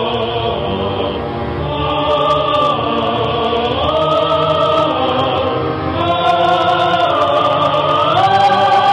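Film soundtrack music: a choir sings long held notes, moving to a new chord every couple of seconds and stepping higher near the end.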